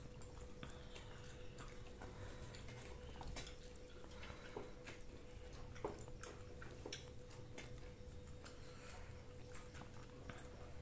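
Faint, scattered clicks and small taps of people eating a meal with their hands and utensils, over a steady low hum.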